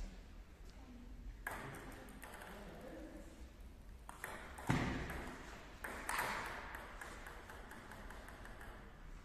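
Table tennis rally: the plastic ball clicking off paddles and table in quick exchanges, echoing in a sports hall, with a heavier thud about halfway through.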